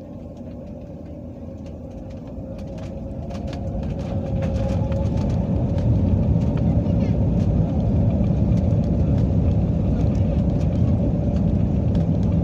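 Airbus A320-family jet's engines spooling up to take-off thrust, heard from inside the cabin: a steady whine over a low rumble that swells over the first few seconds and then holds loud as the airliner rolls down the runway, with scattered light clicks and rattles.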